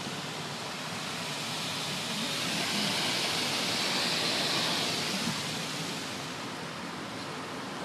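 Automatic car wash's rinse spray hissing on the car's roof, heard from inside the cabin. It swells to its loudest in the middle as the spray passes overhead, then eases back.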